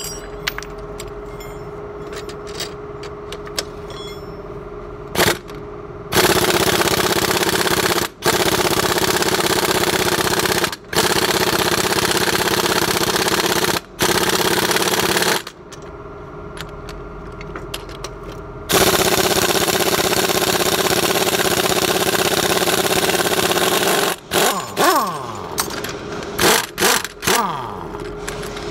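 Pneumatic impact wrench running in several long bursts, with short breaks, as it backs off the nuts and bolts on a shock absorber and coil spring assembly; near the end, clinks and ringing of metal parts and tools being handled.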